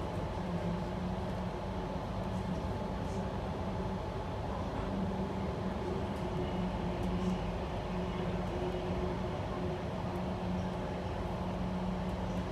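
Electric suburban passenger train running between stations, heard from inside the carriage: a steady rumble with a low, even motor hum.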